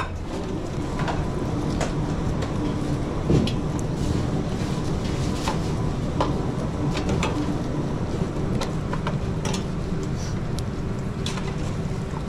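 Steady low hum and rushing of kitchen equipment, with scattered light clicks and clinks of utensils and dishes and one louder knock about three seconds in.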